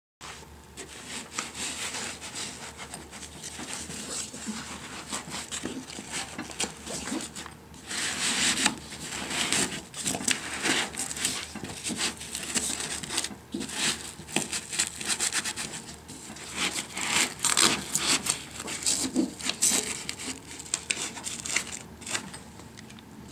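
Padded nylon fabric rustling and rubbing as hands work a bag's center divider into place and press its Velcro tabs down inside the bag, with louder spells of rough rasping about eight seconds in and again around seventeen seconds.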